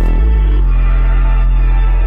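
Loud music with a deep, sustained bass that comes in at the start and holds steady.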